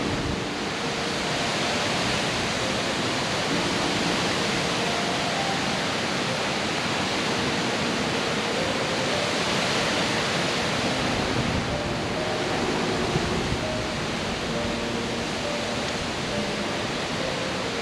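Strong wind, about 30 miles an hour, blowing steadily: a continuous rushing hiss with no breaks.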